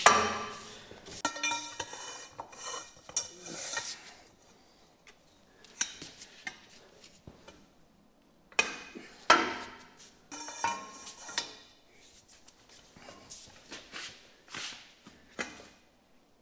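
Steel cheater bar and wrench clanking against metal, with sharp knocks that ring on briefly, as the bar is worked to turn a tight bolt. The knocks come in clusters near the start, over a few seconds after that, again in the middle, and more faintly later.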